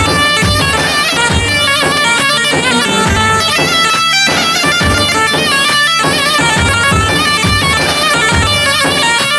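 Kurdish dance music: a loud, reedy, heavily ornamented wind melody in a zurna style over a steady drum beat.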